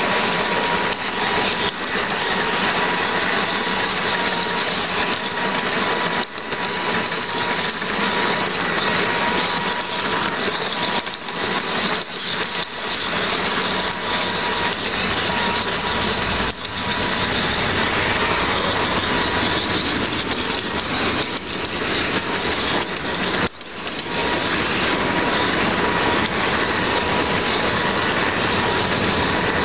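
Model locomotive running along its track, heard close up: a steady whir of its small electric motor and gears with a constant thin whine, and the wheels rattling on the rails. The sound dips briefly three times.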